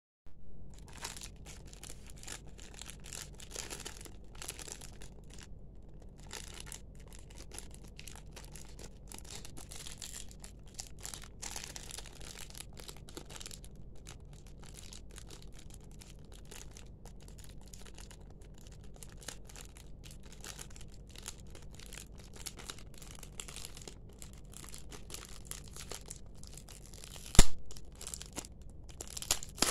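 Thin clear plastic packaging bag crinkling and crackling as hands handle it and work it open, with one sharp, loud snap near the end.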